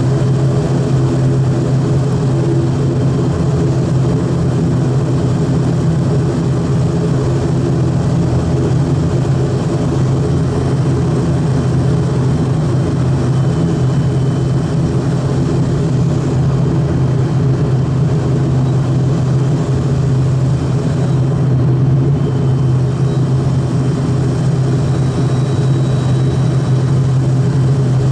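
Cabin sound of an ATR 42-600 turboprop in the climb just after takeoff: the propellers and engines give a steady, loud low drone that does not change.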